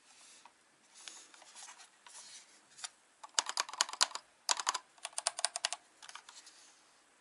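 Typing on a Vortex Race3 mechanical keyboard with Cherry MX Silver linear switches: light, scattered keystrokes, then fast runs of keystrokes in the middle, easing back to a few lighter taps.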